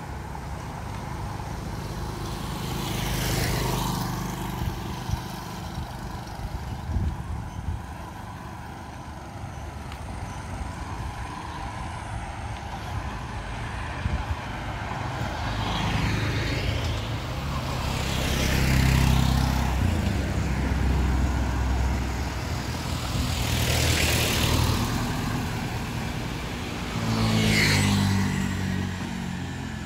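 Road traffic passing close by: about five vehicles go past one after another, each one's engine and tyre noise rising and then falling away, over a steady low rumble.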